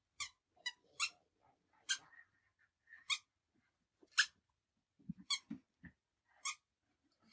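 A toddler's squeaker shoes squeaking with his steps: about nine short, high-pitched squeaks at an uneven walking pace.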